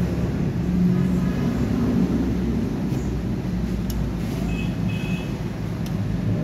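Steady low background rumble, with a few light clicks from handling the MIG welder's wire-feed mechanism.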